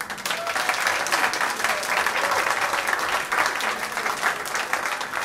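Audience applauding: dense clapping that starts abruptly and slowly thins toward the end.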